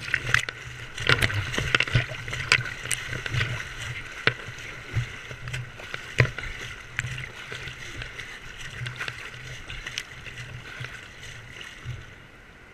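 Whitewater rushing close to an action camera, with water splashing over it in many sharp, irregular splashes and knocks. It grows gradually quieter toward the end.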